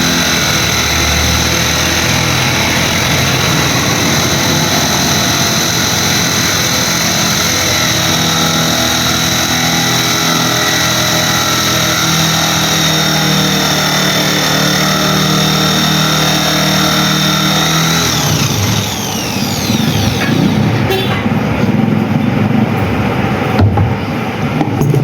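Washing machine motor running at a steady speed with a high whine, then spinning down with a falling whine about eighteen seconds in; after that the sound turns uneven, with knocks and clatter.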